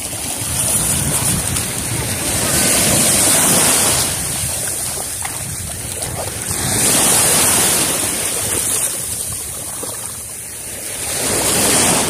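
Sea waves washing in over the shallows, with wind buffeting the microphone; the rush swells and eases about three times.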